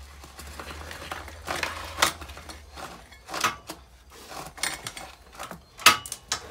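A rusty, cut motorcycle drive chain being pulled off the rear sprocket by hand, its steel links rattling and clinking in irregular bursts, with a sharp clink near the end.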